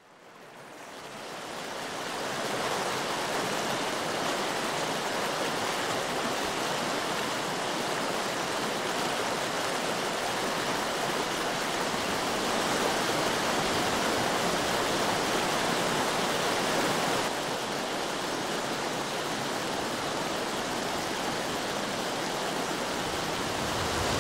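Fast-flowing mountain stream rushing over rocks, a steady wash of water noise that fades in over the first couple of seconds.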